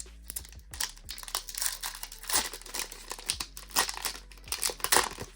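Foil booster pack wrapper being crinkled and torn open, an irregular run of crackles.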